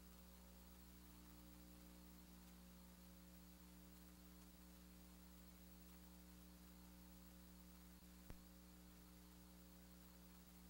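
Near silence: a faint steady hum.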